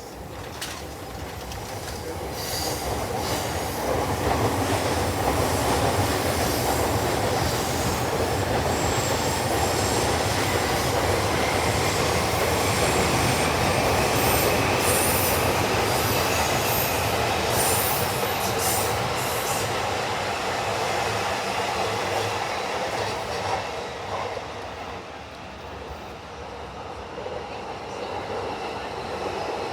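Electric passenger train passing close by: wheels running on the rails with rail-joint clicks and some wheel squeal. The sound swells over the first few seconds, holds, and eases off near the end.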